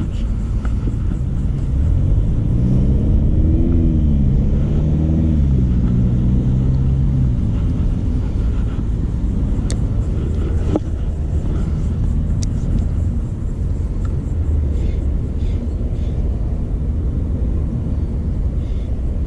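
A motor vehicle engine passing, its pitch rising, dropping and rising again as it accelerates through the gears for a few seconds, over a steady low rumble. A sharp click comes about eleven seconds in.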